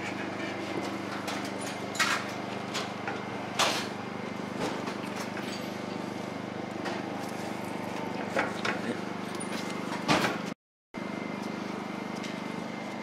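Scattered light metal clicks and knocks as a rotor hub, wheel bearing and washer are handled and seated onto a truck's front spindle, over a steady low hum.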